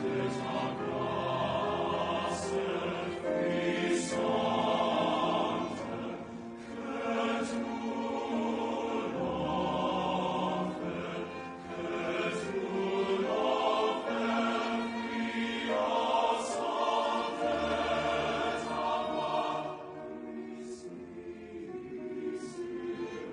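Background choral music: a men's chorus singing, a little softer near the end.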